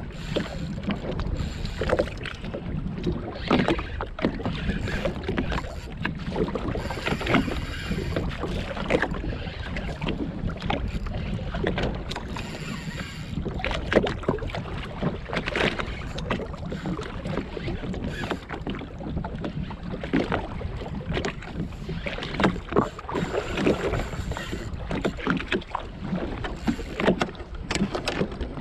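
Water slapping and splashing irregularly against the hull of a jetski at sea, over a steady low rumble of wind buffeting the microphone.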